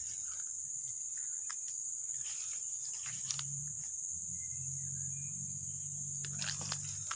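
Steady high-pitched drone of insects, with a few short crunches of footsteps on dry grass and twigs.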